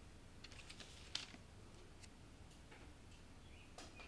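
Faint scattered clicks and light taps, with one sharper click about a second in, from small painting tools being handled on a table. A faint bird-like chirp comes near the end.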